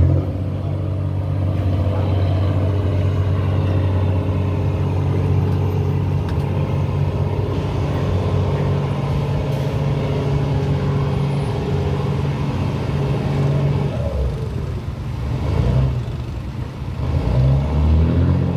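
Heavy diesel engines running with a steady low drone, from the ferry's tug and the lorries aboard. Near the end an engine revs up.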